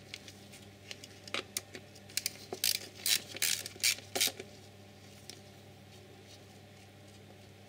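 Short light clicks and scrapes of a small coil-pack bolt and washer being handled and set into its hole by gloved fingers, a cluster of a dozen or so over about three seconds, over a low steady hum.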